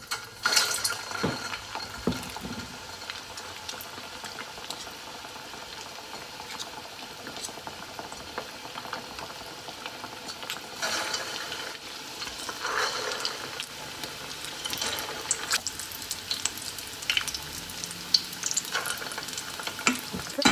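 Spoonfuls of fish paste deep-frying in vegetable oil heated to about 170 °C in a small iron wok: a steady bubbling sizzle full of sharp crackles that swells each time a new spoonful goes in, most clearly about halfway through. There are light clinks of metal spoons.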